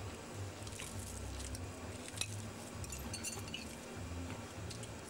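Light clinks of cutlery against plates at a meal table, a few scattered ticks, over a low hum.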